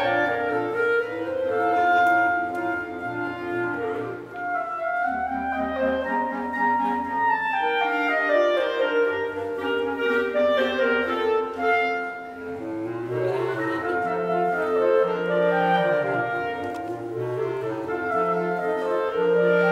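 Clarinet quartet of three clarinets and a bass clarinet playing a warm, soft piece in several parts, with held notes moving over a low bass clarinet line.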